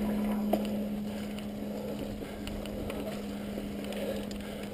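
Mountain bike rolling over a dirt trail as heard from an on-bike action camera: tyre rumble and small rattles and clicks from the bike, over a steady low hum.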